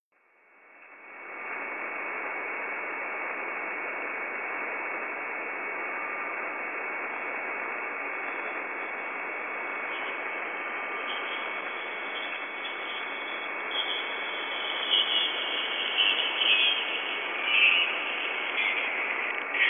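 A steady hiss of static-like noise, fading in over the first second or so, with a faint high whistle held through it. Crackling bursts join the hiss from about two-thirds of the way in.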